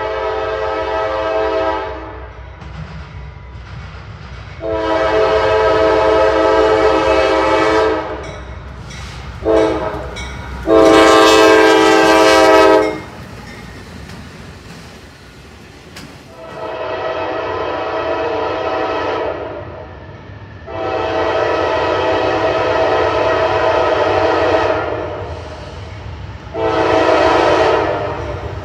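Norfolk Southern diesel locomotive's air horn sounding the grade-crossing signal, long, long, short, long, the fourth blast the loudest, then starting the same pattern again about 17 seconds in. A steady low rumble of the train runs beneath the blasts.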